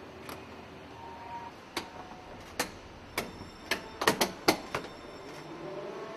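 A run of sharp metallic clicks and clanks, about nine in three seconds, bunched closest about four seconds in, each with a short ringing tail. They come over a steady factory hum, typical of hand tools and metal parts being handled on a car assembly line.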